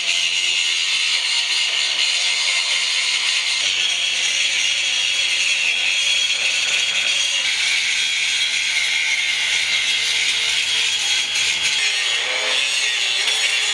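Cordless angle grinder grinding steel tube: a continuous, even high-pitched grinding whine with a rasping edge.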